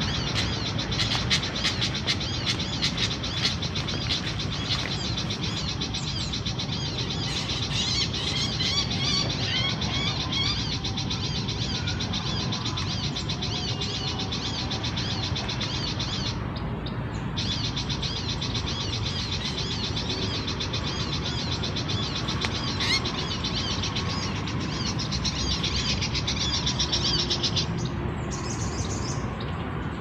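Bird-lure recording played from a speaker: dense, fast chirping and twittering calls that drop out briefly about halfway.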